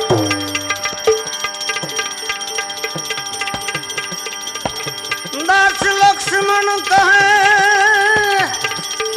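Instrumental passage of a live Gujarati devotional bhajan: tabla playing a steady run of strokes throughout. About halfway through, a melody line enters, held with vibrato for about three seconds before it stops.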